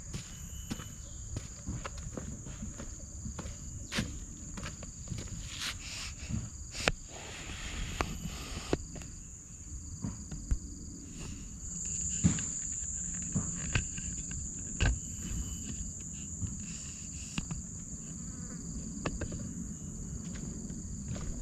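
Insects droning steadily at a high pitch, louder for a couple of seconds around the middle, over scattered footsteps and knocks.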